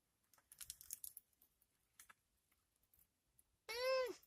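Faint, scattered mouth clicks of someone chewing food. Near the end comes a short, high vocal sound, about half a second long, whose pitch rises and then falls.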